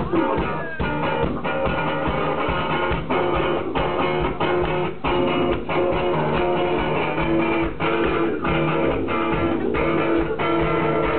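Heavy noise-rock band playing live at loud volume: electric guitars sustain over drum hits from a full kit, heard through a small camera's microphone.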